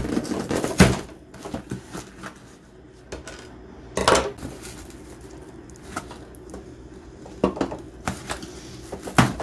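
Cardboard shipping box being opened by hand: flaps pulled back and handled, giving scattered knocks and short scrapes, loudest about a second in and again at about four seconds.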